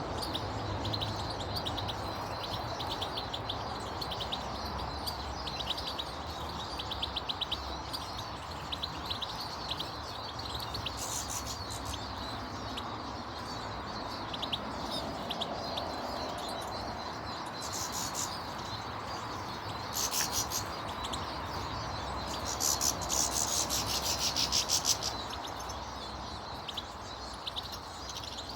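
Small garden birds chirping and twittering, with rapid short chips throughout and a few louder, harsher bursts of chatter, the longest near the end, over a steady background rush.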